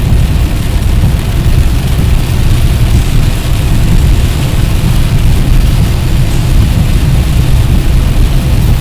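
Vehicle travelling on a rain-soaked road: a loud, steady low rumble with an even hiss of rain and tyre spray over it.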